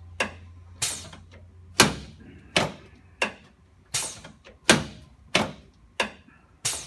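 A steady series of about ten sharp knocks, roughly one every two-thirds of a second, from a chiropractic adjustment of a patient lying face up.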